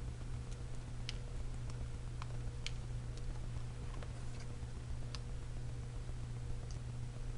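Faint, scattered small clicks and ticks of letter stickers and paper being handled and pressed onto a scrapbook page, over a steady low hum.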